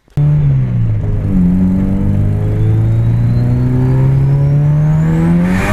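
Nissan SR20DET turbocharged 2.0-litre four-cylinder accelerating under boost, its pitch climbing steadily, with a turbo whistle rising over it and a short hiss near the end as boost is let off. The engine runs smoothly on all four cylinders, its misfire cured by setting the cam angle sensor at top dead centre.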